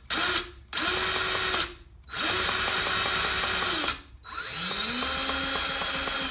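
DEWALT 20V MAX cordless grease gun (DCGG571M1) motor whining in several trigger pulls, each about one to one and a half seconds, with a longer run near the end whose pitch rises as it gets going. The gun is being run to see whether it pumps grease before its bleeder screw has been opened to let out the air.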